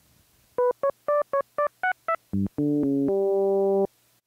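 Roland System 8 synthesizer playing its two-operator FM oscillator at a 1:1 ratio, one sine wave modulating another. It plays a quick run of about eight short, bright staccato notes, then a few lower, longer held notes that stop shortly before the end.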